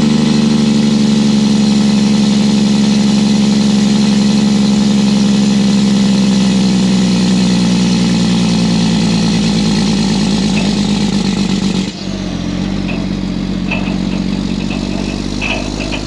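Tri-axle dump truck's diesel engine running as the truck drives, heard close to its exhaust stack: a steady engine drone whose pitch sinks slowly, then about twelve seconds in the sound drops suddenly to a lower, quieter note.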